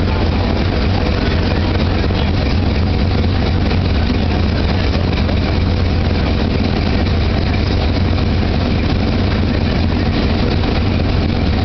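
Steady, loud low drone of running machinery, unchanging throughout.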